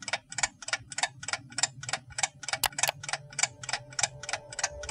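Clock ticking steadily, about four ticks a second, with two sharper clicks near the middle.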